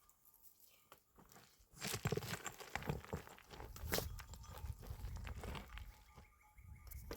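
Footsteps crunching on dry, stony ground and brush. They start about two seconds in, go at an uneven pace, and fade near the end.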